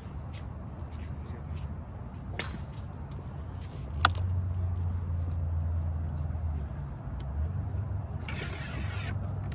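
A golf club strikes a ball with a sharp click about four seconds in, with a fainter click earlier, over a steady low hum. A short burst of hiss comes near the end.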